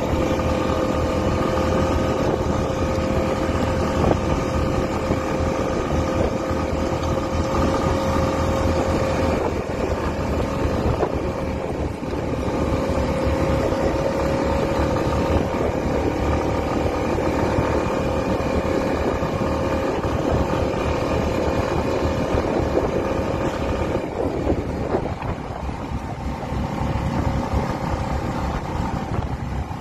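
Small off-road vehicle engine running steadily under way, a constant drone with a held tone, with wind buffeting the microphone.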